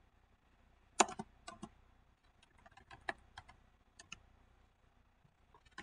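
Keystrokes on a computer keyboard: a quick, uneven run of taps starting about a second in and lasting about three seconds, with a couple more near the end.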